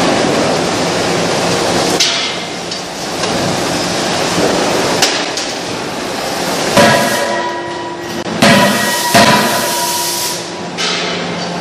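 Forging-line machinery running with a steady din, broken by several heavy, irregularly spaced metal blows that ring on afterwards, the loudest in the second half. The blows are from a CNC hydraulic closed-die forging hammer striking hot billets.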